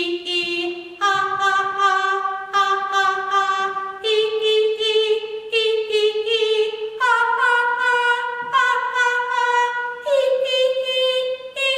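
A woman singing a vocal warm-up exercise: short phrases of repeated syllables, each about a second and a half long and each a step higher in pitch than the last.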